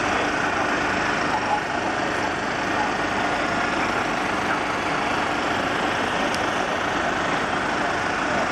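A fire engine's diesel engine running steadily at a fire scene, with hoses coupled to the truck, as when it is driving its pump. It makes a dense, even noise that does not change.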